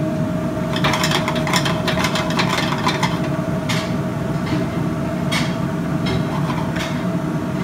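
Steady roar and hum of a commercial kitchen's gas range and ventilation. Chopped onions frying in a small omelet pan crackle for a couple of seconds near the start, and a few single sharp clicks of pan or utensil follow.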